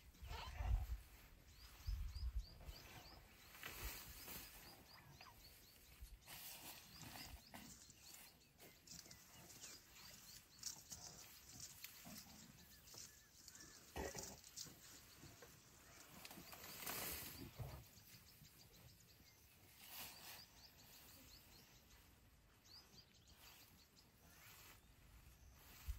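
African elephant grazing close by: irregular tearing and rustling as its trunk pulls up grass, with a few low thumps in the first two seconds, the loudest about a second in.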